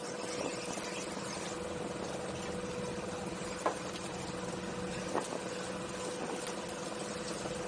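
Outboard motor idling with a steady, even hum, and two brief light knocks about halfway through.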